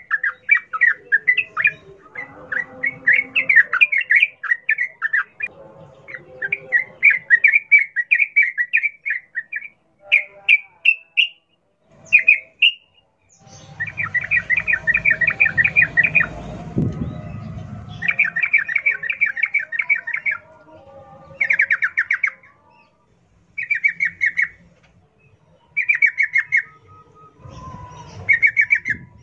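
Yellow-vented bulbul singing a wild-style song: rapid chattering, rolling phrases of one to three seconds with short gaps between them. A low rumble sits underneath for a few seconds in the middle.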